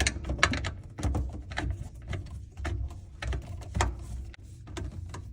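Irregular clicks and clinks of a wrench working a bolt loose on a garbage disposal, with handling knocks.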